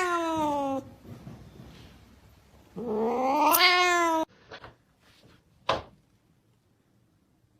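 A cat yowling: two long, drawn-out meows, each rising and then falling in pitch, the second starting about three seconds in. A couple of faint clicks follow.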